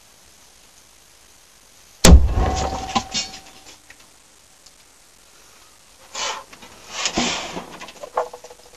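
A single very loud bang about two seconds in, with a low boom and ringing that die away over about a second. It is a flashback explosion: the HHO (hydrogen-oxygen) gas in the balloon feeding a pen-sized HHO torch ignited through a failed flashback arrester. Softer noises follow about four and five seconds after the bang.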